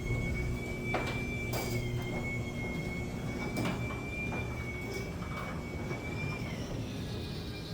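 Sectional garage door travelling on its electric opener, its hinges swapped for green noise-reducing hinges: a steady motor hum with a high whine and a few light clicks as the panels pass. The whine dips and the run winds down near the end. Overall it runs much quieter than with the regular hinges.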